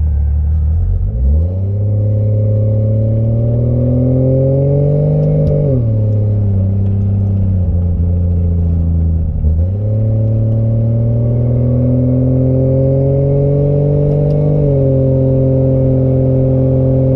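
Engine of a Holden VB Commodore fitted with a Toyota 1JZ-GTE turbocharged straight-six, heard from inside the cabin as the car pulls away and accelerates. The engine note climbs and drops at each gear change, about 6 and 10 seconds in, then settles to a steady cruise.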